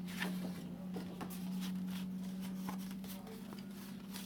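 Sheets of cardstock rustling and tapping faintly as they are handled and folded, over a steady low hum.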